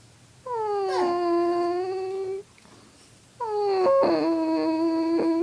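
Dog howling: two long drawn-out howls, each sliding down slightly in pitch and then held for about two seconds, with a break of about a second between them.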